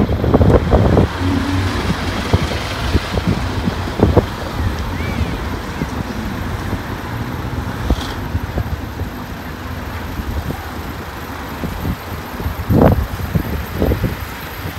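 Road traffic going by on a busy street: a steady rush of car tyre and engine noise, louder as individual cars pass.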